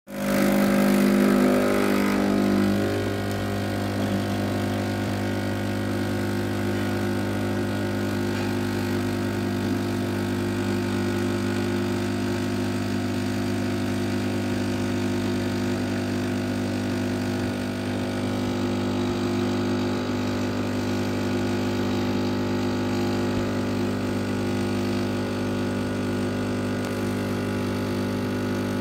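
Espresso machine pump humming steadily while it pulls a shot, louder and fuller for the first two or three seconds.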